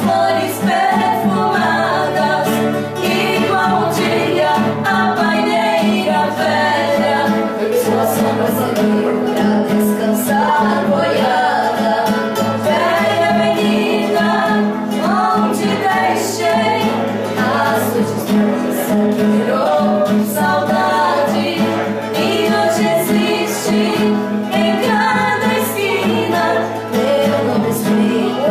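Female vocal duo singing a sertanejo raiz song over acoustic guitar (violão) accompaniment.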